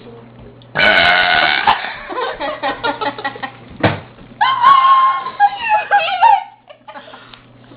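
A girl's loud burp, about a second long, starting just under a second in, followed by a run of short, quick pulses. About halfway through comes a second drawn-out vocal sound with a wavering pitch.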